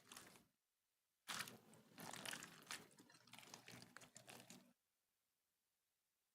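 Slime being squished and worked by hand, a dense crackly, crunchy sound lasting about three and a half seconds, then stopping.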